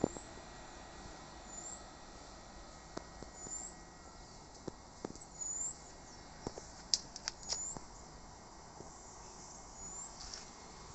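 A small bird gives a short high chirp every one to two seconds over a steady hiss, with a few sharp clicks in the middle.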